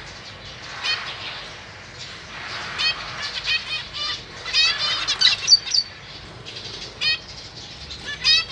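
Zebra finches calling: short call notes, a few at first, then quick runs in the middle and again near the end, with wings fluttering.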